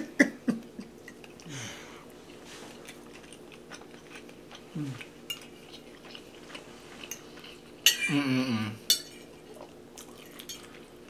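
Eating with forks off ceramic plates: scattered light clicks and scrapes of cutlery, with soft chewing. Two short falling 'mm' hums come early and midway, and a louder brief voice sound about eight seconds in.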